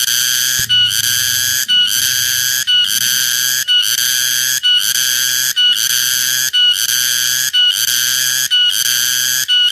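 Cicada calling: a loud, buzzing call of about a second, repeated at an even pace with short breaks between, about ten times.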